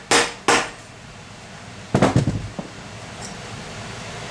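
Two sharp hammer blows on the steel top of an electric water heater, struck to free the brass fitting, each ringing briefly. About two seconds in comes a short, loud burst of metal clattering.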